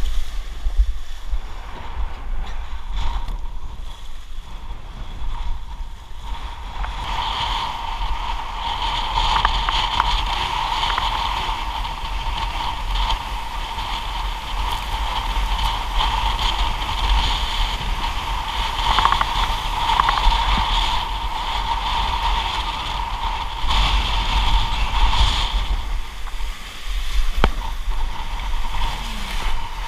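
Wind buffeting the microphone and water rushing and splashing under a windsurf board planing fast through rough, broken sea. A steady whine comes in about seven seconds in and fades near the end.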